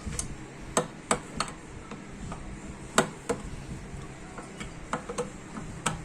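Sharp metallic clicks, about ten of them at uneven intervals, from hand tools working the 14 mm bolts off the pinion and valve housing of a power steering rack and pinion.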